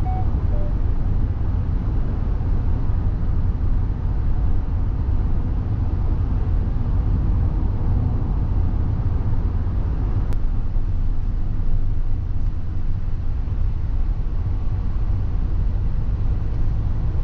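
Kia Sonet cruising at a steady speed: the even, low rumble of its 1.5-litre four-cylinder diesel engine mixed with tyre and road noise.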